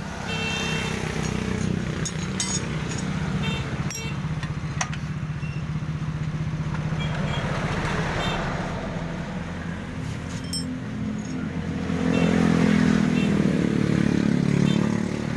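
Motorcycle engine running steadily, then louder and a little higher in pitch for the last few seconds, with a few light clicks over it.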